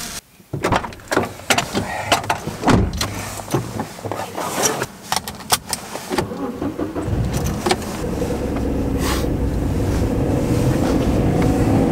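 Crinkling bubble wrap and a run of clicks and knocks as a person handles a wrapped part and settles into a car's driver's seat. About seven seconds in, the car's engine starts and runs steadily, its note rising slightly near the end.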